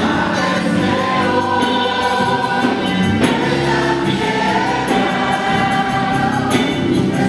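Mixed church choir singing a hymn together through microphones, with held notes and no pause, accompanied by a string band of guitars, mandolins and violin.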